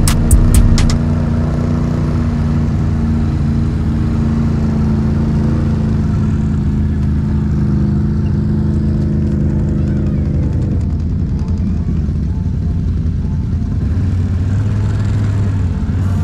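ATV engine running at a steady low speed, heard from the rider's seat, with a few sharp clicks in the first second. About ten seconds in the engine note drops and settles lower.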